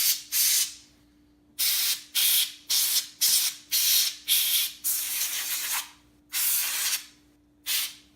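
Can of compressed air sprayed in a quick run of short hissing blasts, about a dozen, with a longer blast of about a second past the middle, blowing dust out of a laptop's cooling fans.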